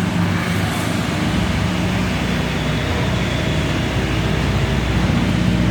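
Engine of a concrete mixer pump running steadily, with a loud, even mechanical hum.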